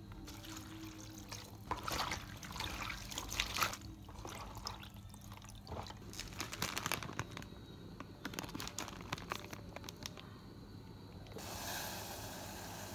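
Water splashing and dripping in irregular bursts as chopped greens are rinsed in a plastic colander over a basin of water. From about eleven seconds in, a steady hiss from a pot of water boiling on a gas stove.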